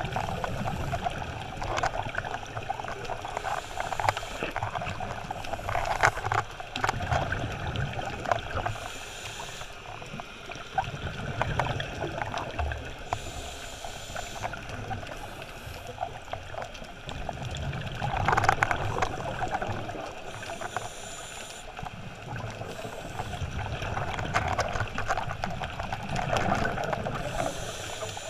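Scuba divers breathing through their regulators underwater: a steady muffled gurgle, with a burst of exhaled bubbles every four or five seconds.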